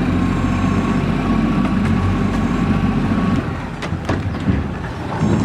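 Boat's outboard motor running steadily with a low rumble; a little past halfway its steady note eases off, and a few sharp knocks follow.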